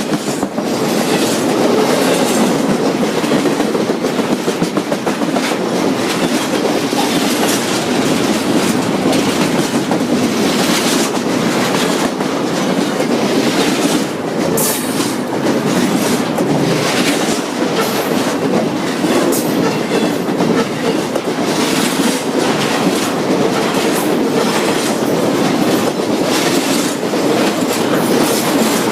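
Freight train cars rolling past close by: a steady rumble with wheels clacking rapidly over the rail joints.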